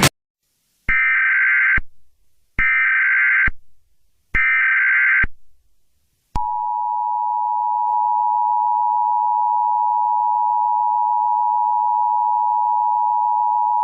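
Emergency Alert System broadcast tones: three short bursts of SAME header data, each about a second long with a second of silence between. About six seconds in, the steady two-tone EAS attention signal starts and holds.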